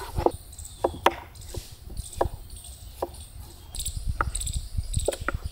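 Sharp, irregular knocks about once a second, from kitchen utensils at work.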